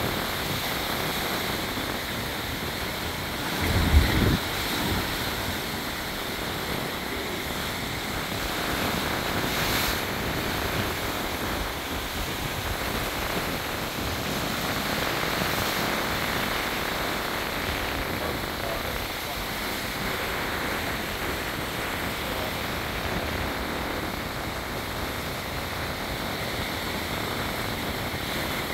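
Sea surf crashing and churning against limestone cliffs and into a narrow rocky inlet: a steady wash of breaking water, with one brief low thump about four seconds in.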